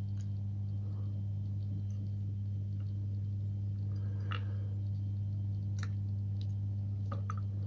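A steady low hum throughout, with a few faint small clicks and taps of metal lock parts being handled as the euro cylinder's plug is worked out.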